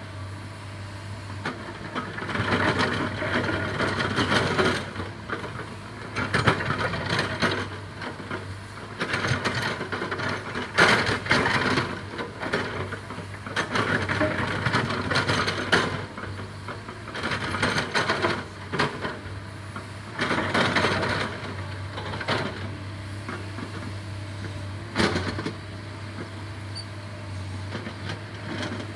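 Backhoe's diesel engine running at work: a steady low hum with louder surges every few seconds as it revs up and settles back.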